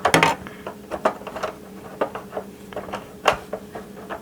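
Plastic parts of a G.I. Joe Rolling Thunder toy vehicle being handled and fitted: a cluster of clicks and clatter at the start, scattered light taps, and one sharp click a little past three seconds in, over a faint steady hum.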